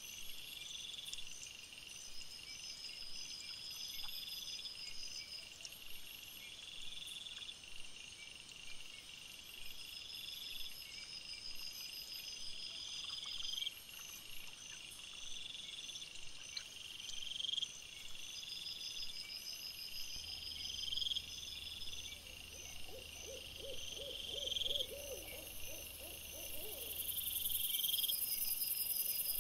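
Night insects, crickets, chirping in a steady rhythmic chorus, high-pitched phrases repeating about every second and a half. About two-thirds of the way through comes a short run of about eight quick, lower pulsed calls from an animal.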